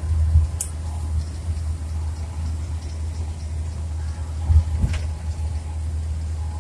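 Steady low rumble of road and engine noise inside a moving vehicle's cab on the highway, with a couple of light clicks.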